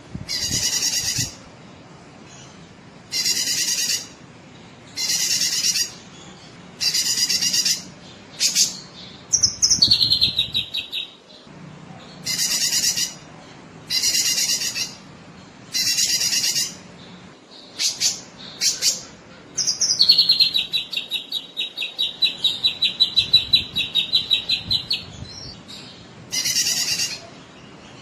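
Cucak kinoi songbird singing vigorously: a repeated call phrase of about a second, given about every two seconds, broken by fast rattling trills that drop in pitch and then hold. One trill comes about ten seconds in; a longer one of about five seconds comes about twenty seconds in.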